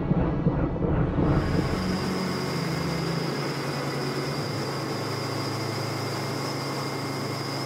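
Robinson R44 helicopter running, heard from inside the cabin: its six-cylinder Lycoming piston engine and rotor make a steady low hum, with a steady high whine over it.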